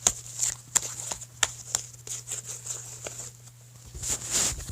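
Icy slime being handled and squished: a string of small sticky clicks and pops, with a short rustling hiss about four seconds in.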